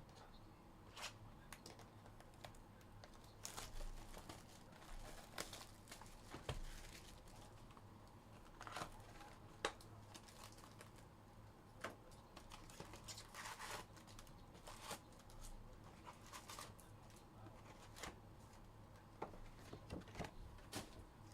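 Faint crinkling and tearing of baseball card pack wrappers being ripped open, with scattered soft rustles and clicks of cards being handled.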